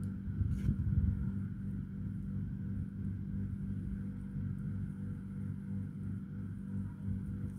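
Steady low motor hum throughout, with a brief louder low rumble and a click about a second in, likely the hands bumping the microphone.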